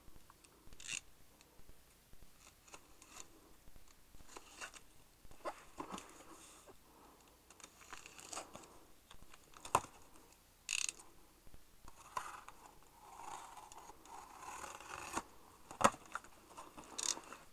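A taped cardboard shipping box being handled and opened by hand: scattered scrapes, rustles and sharp clicks of cardboard, with a longer rasping stretch a little after the middle.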